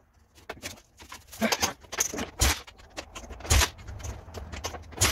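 Irregular clicks, knocks and clatter of hands working on the ATV, with a few heavier thumps; the engine is not running.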